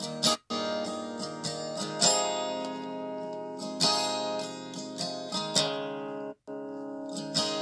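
Solo acoustic guitar playing the instrumental intro of a country ballad, chords strummed and left ringing. The sound cuts out completely for a split second twice, once just after the start and once about six seconds in.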